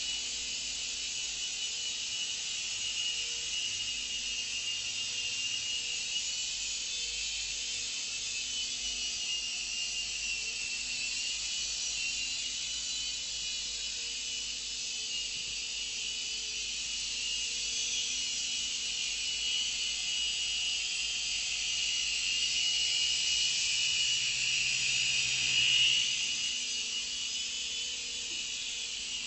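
Syma S110G coaxial micro RC helicopter flying: a high, thin whine from its small electric motors and rotors. The pitch wavers as the throttle changes. It grows louder about 25 seconds in, peaking near the end as the helicopter comes closer, then drops back.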